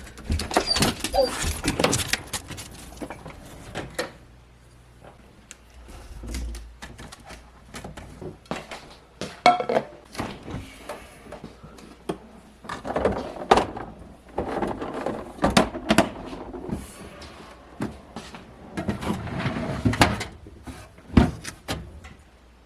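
A run of scattered knocks, clicks and clatter from household handling indoors, with doors opening and closing; the clatter gathers in clusters near the start, about halfway through and near the end.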